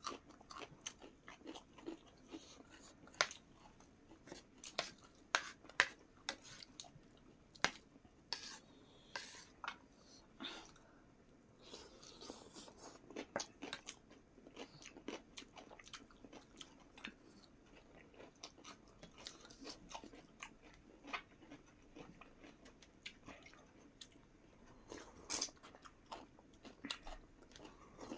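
Close-up eating sounds of a mukbang: chewing and mouth smacking, a dense run of small sharp clicks and crunches.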